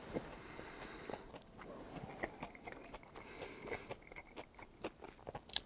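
Close-miked chewing of tteokbokki (spicy stir-fried rice cakes): quiet, scattered wet mouth clicks and smacks, with one sharper click near the end.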